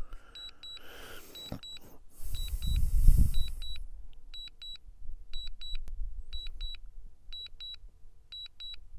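DJI drone controller sounding its return-to-home warning, a high double beep about once a second, while the DJI Mini 3 Pro auto-returns on low battery. A louder rush of noise with a low rumble covers it from about two to four seconds in.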